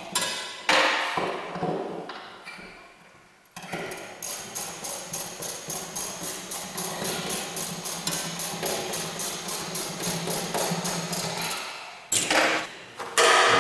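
Ratchet wrench worked in quick, even strokes, about three clicking strokes a second, tightening nuts on a metal mounting bracket. A sharp knock sounds near the start.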